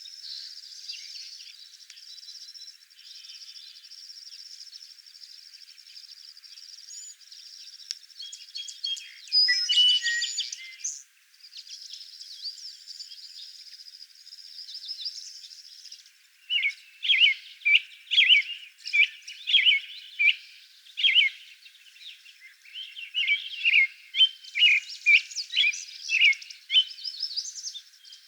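Birdsong: high, thin continuous chirping in the first half, then, from about halfway, a run of loud, clear whistled phrases in quick succession, typical of an American robin singing.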